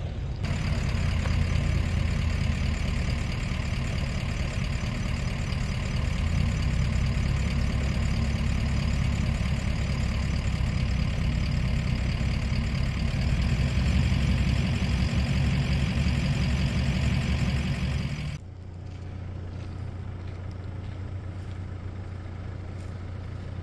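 Four-wheel-drive vehicle engines running steadily at low revs. About 18 seconds in, the sound cuts abruptly to a quieter, steady engine hum.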